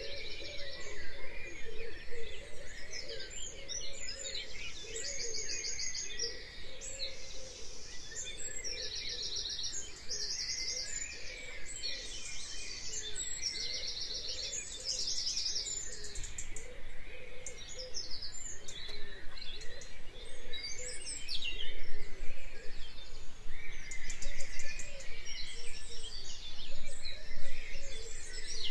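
Dawn chorus: many birds singing and calling at once, with high, rapid trills repeating every few seconds over a steady mix of chirps and lower calls.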